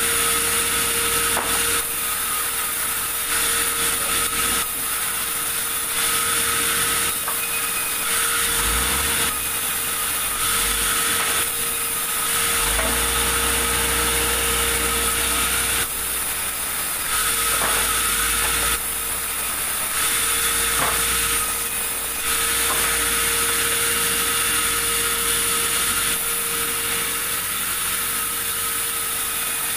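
Sawmill saw cutting large timber: a constant machine whine under a continuous hiss, its texture shifting every second or two.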